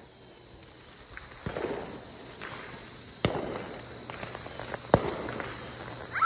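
Hand-held sparklers burning, with scattered small crackles and two sharp pops, about three and five seconds in.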